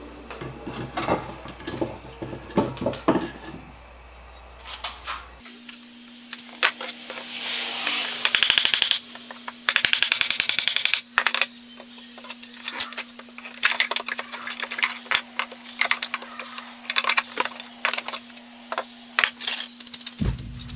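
Metal hand tools and nails clinking and knocking against a wooden tool chest as nailed boards are worked loose, with two longer stretches of dense rattling about eight and ten seconds in.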